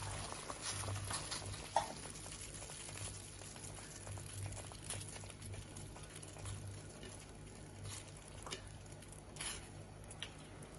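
Water boiling in a steel pot, with faint steady bubbling and many small pops and crackles as dough balls cook in it. A sharper tap about two seconds in.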